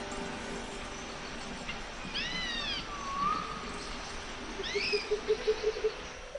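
A few short, high, arching animal calls over faint background music, with a quick run of repeated low notes near the end.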